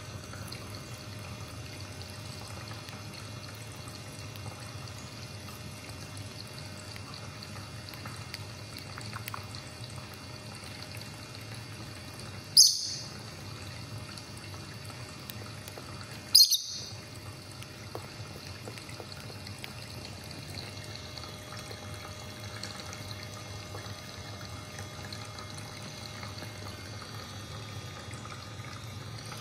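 Rosy-faced lovebird giving two short, high-pitched chirps about four seconds apart, over a steady background hiss.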